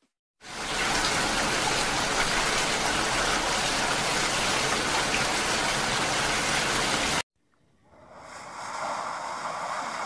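Heavy rainfall sound effect: a dense, steady hiss of rain that starts a moment in and cuts off suddenly about seven seconds in. A quieter rushing noise then fades in near the end.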